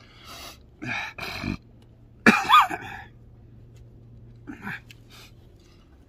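A man coughing and clearing his throat in a few short bursts, the loudest just over two seconds in.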